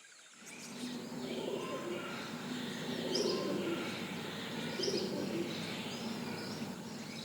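Pigeons cooing over and over, with small birds chirping high above them.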